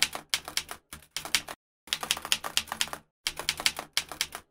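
Typing keystrokes clacking in quick runs, with two short pauses between the runs, stopping right at the end.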